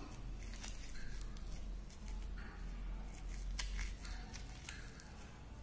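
Hands grinding fresh moringa (drumstick) leaves with coarse rock salt between the palms: a soft, uneven crunching and rustling with a few sharp clicks as the leaves are crushed to press out their juice.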